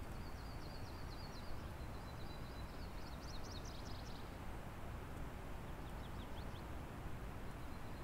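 Steady rushing of a river in the background, with a small songbird singing high, rapid trills over it: a long phrase over the first half, a short one past the middle.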